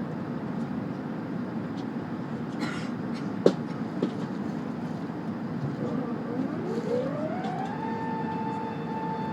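Steady cabin noise of an Airbus A380 in flight, with two sharp clicks a half-second apart and, about six seconds in, a mechanical whine that rises in pitch for a couple of seconds and then holds steady.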